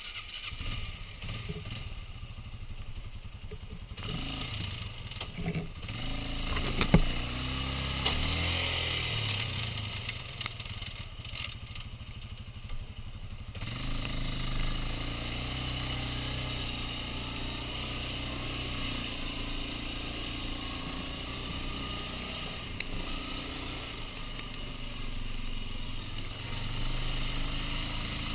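Quad bike engine running, its note changing through the first half with a sharp knock about seven seconds in, then settling into a steady run from about halfway.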